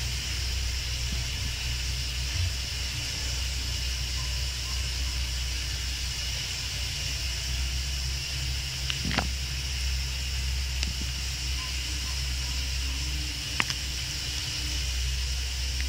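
Steady hiss and low hum of the recording, with two short sharp clicks, about nine and about thirteen and a half seconds in.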